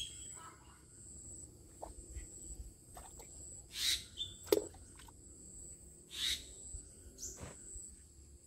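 Quiet outdoor ambience: a steady high insect drone with a few short bird chirps. A single brief sharp tap about halfway through is the loudest moment.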